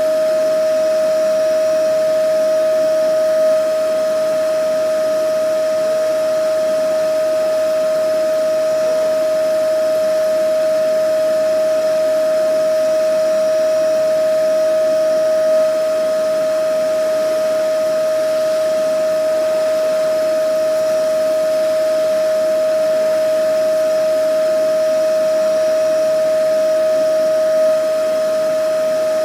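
Vacuum cleaner running steadily: a constant high motor whine over rushing airflow hiss, with a faint bump about every twelve seconds.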